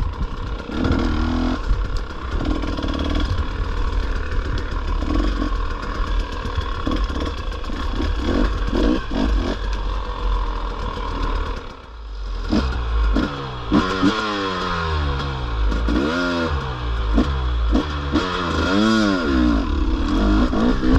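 A 450 four-stroke dirt bike engine runs under load with clattering knocks as the bike goes over rough ground. After a brief dip about halfway through, it revs up and down repeatedly while climbing a hill in second gear.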